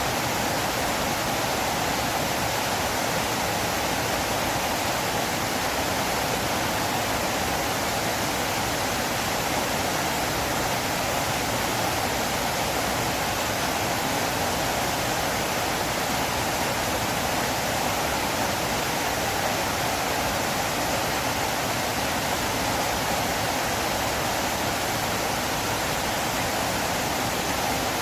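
River water flowing: a steady, even wash of water noise that does not change.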